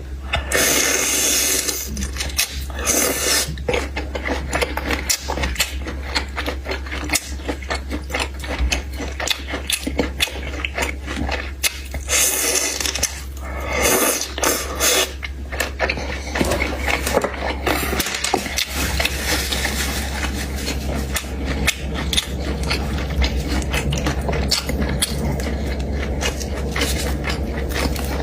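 Close-miked eating and food handling: many small clicks and scrapes, with several louder noisy bursts near the start and around halfway, over a steady low hum.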